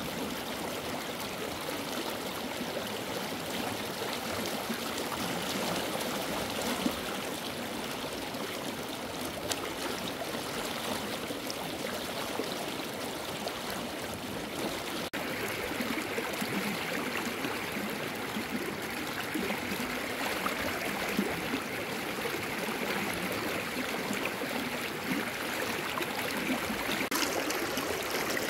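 Running water flowing steadily, a continuous rushing. About halfway through it breaks off for an instant and carries on with more hiss.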